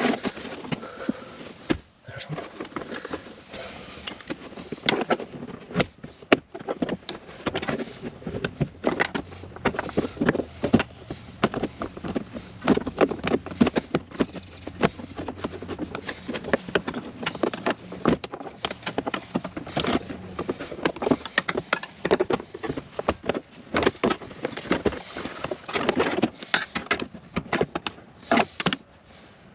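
Hard plastic rear cargo trim panel of a Jeep Wrangler JL being pried and flexed away from its retaining clips, giving a dense, irregular run of clicks, creaks and small knocks.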